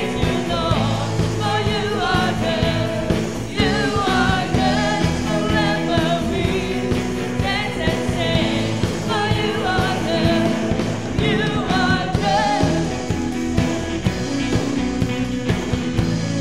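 Live church praise band playing a worship song: vocalists singing into microphones over guitars and a drum kit keeping a steady beat.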